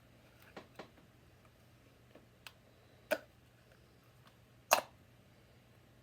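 Lego Technic plastic parts clicking and knocking as they are handled and fitted together: a few light clicks, then two sharper snaps at about three seconds and just before five seconds.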